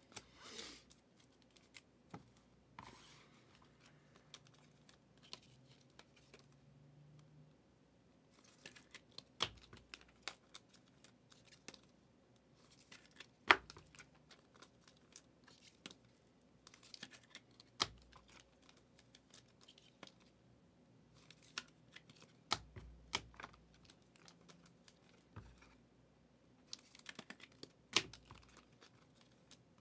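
Scattered clicks, taps and rustles of hands handling small objects and packaging at a desk, with one sharper click a little under halfway through.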